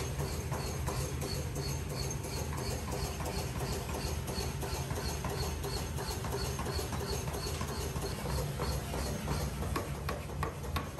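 Forge workshop machinery running with a steady hum and an even rhythmic clatter of about three knocks a second. Near the end come sharp metal impacts as a mechanical power hammer strikes red-hot steel.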